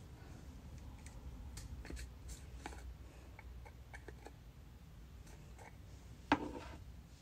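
Faint small clicks and taps of a makeup brush and compact being handled, with one sharper, louder click about six seconds in, over a low steady hum.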